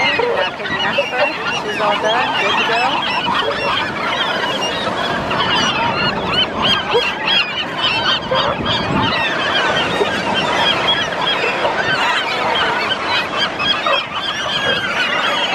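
A large flock of gulls calling nonstop, many overlapping squawks and cries at once, as the birds crowd and squabble over the afterbirth.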